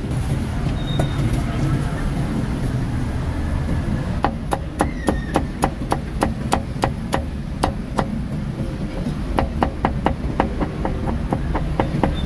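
Steel cleaver chopping roast pork belly on a thick wooden chopping block: a regular run of sharp chops, about three or four a second, starting about four seconds in, over a steady low rumble of street traffic.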